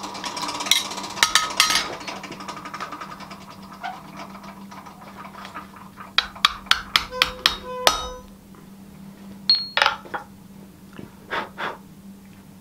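Hand hammer striking a steel punch held on a red-hot knife blade against the anvil: a quick run of about eight sharp, ringing taps about six seconds in. Clinks of steel tools on the anvil come in the first two seconds, and a few lighter ones near the end.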